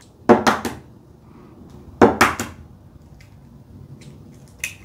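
Eggs cracked on the rim of a stainless-steel mixing bowl: two sharp knocks about two seconds apart, each followed by the shell breaking open, and a small click near the end.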